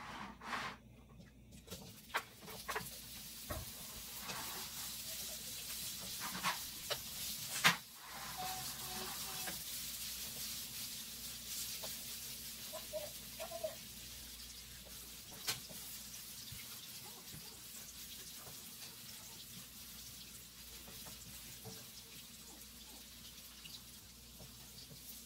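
Sliced sausage frying in hot oil in a wok, a hiss that starts about two seconds in and slowly settles. A few sharp knocks from a wooden spatula stirring the pieces stand out, the loudest about a third of the way in.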